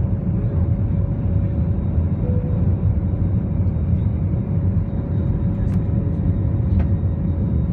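Steady roar of an Airbus A321's jet engines and rushing air heard inside the cabin as the airliner climbs out after takeoff, with a thin steady hum above the low rumble.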